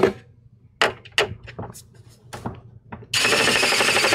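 Phillips screwdriver working at a screw in a metal computer chassis: a few light clicks and taps, then about three seconds in a loud rapid rasp lasting over a second as the bit slips in the screw head, the bit being too small for the screw.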